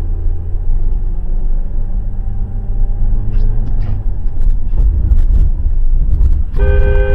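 Car engine and road noise rumbling steadily from inside the car, with a few light clicks in the middle. About six and a half seconds in, a loud two-tone horn starts and is held.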